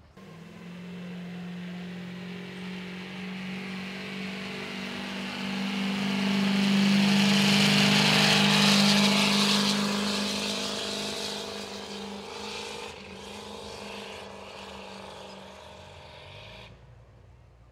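Diesel pickup truck engine running under heavy load while it pulls a weight-transfer sled. It grows louder to a peak about halfway through, fades, then cuts off suddenly near the end.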